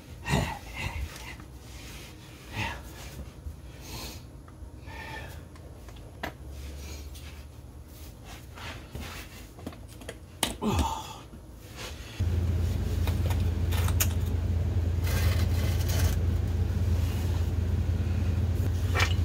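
Scattered light clicks and knocks of metal parts and tools being handled under a car, beside its transmission. About twelve seconds in, a loud steady low hum starts suddenly and runs on.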